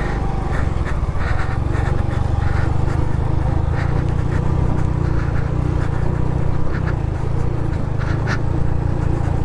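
Honda Pop 110i's small single-cylinder four-stroke engine running steadily under load while the motorcycle rides over rough dirt trail, with scattered short knocks and rattles.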